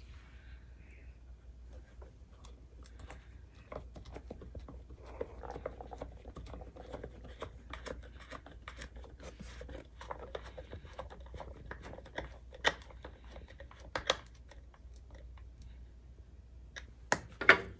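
A small screw being turned by hand with a screwdriver into a wooden cigar box: faint, irregular creaks and clicks of the screw and driver, with a few sharper clicks toward the end.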